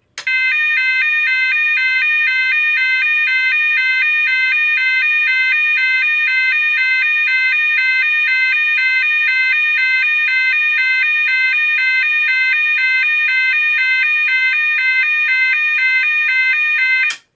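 GE AS363 tone generator sounding its 510 Hz to 610 Hz alternating two-tone signal, switching between the two pitches at a 2 Hz rate, with strong overtones. It holds at an even level and cuts off abruptly near the end.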